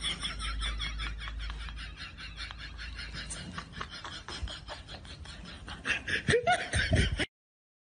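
People laughing in quick pulsing bursts. The laughter is louder at the start and again near the end, then cuts off suddenly about seven seconds in.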